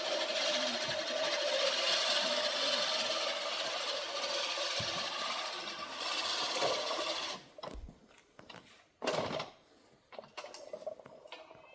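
Manual push reel mower cutting long grass: a steady whirring clatter of the spinning blade reel, which stops abruptly about seven seconds in, followed by a few clicks and a single thump.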